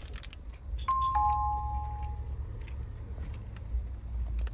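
A two-note electronic ding-dong chime, a higher tone then a lower one, each fading out over about a second, about a second in, over a steady low rumble.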